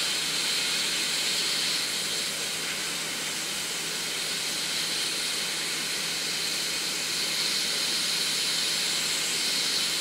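Hot air rework station blowing a steady hiss of air from its nozzle onto a circuit board, heating the solder to lift off a small diode.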